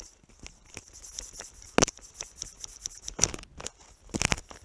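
Handling noise from fishing gear on a float tube: irregular close clicks and knocks, three of them louder, over a steady high hiss.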